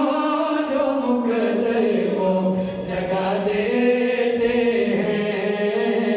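Men's voices chanting a devotional qasida together, in long held notes that slide up and down.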